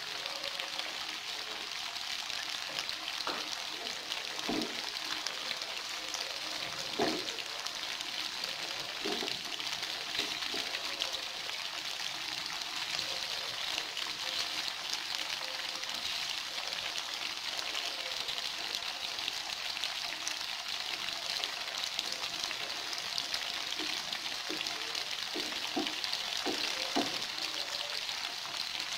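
Tofu cubes frying in hot oil in a non-stick pan, a steady sizzling hiss. A few short knocks come from the wooden spatula and chopsticks as the pieces are turned.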